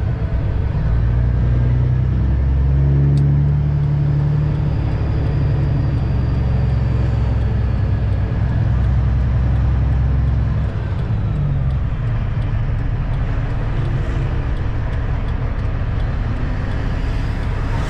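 Semi truck's diesel engine and road noise heard inside the cab while driving: a steady low drone whose note climbs briefly about three seconds in and eases off about ten seconds in.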